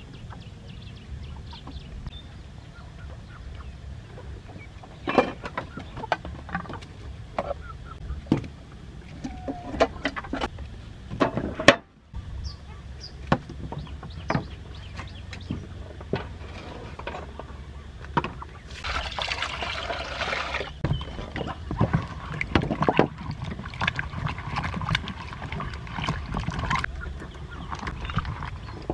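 Domestic chickens clucking amid scattered sharp knocks and snaps, with a few seconds of rushing noise about two-thirds of the way through.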